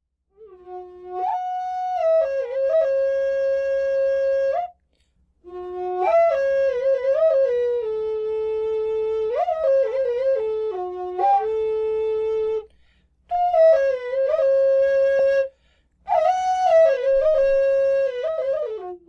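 A solo wind instrument with a flute-like tone plays a slow melody in four phrases with short pauses between them. The notes slide and bend into one another.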